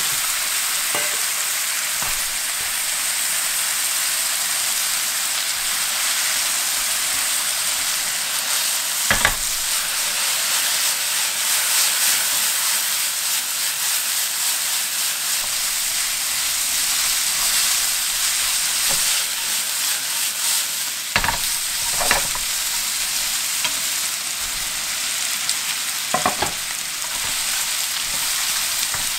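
Lamb pieces and a soy sauce and sugar glaze sizzling steadily in a frying pan, with a few short sharp knocks now and then.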